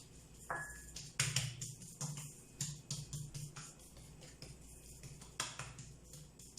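Background music with a light percussive beat.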